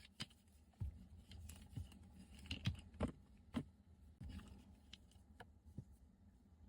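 Packaging being handled during an unboxing: scattered light clicks and taps, most of them in the first four and a half seconds, fewer after.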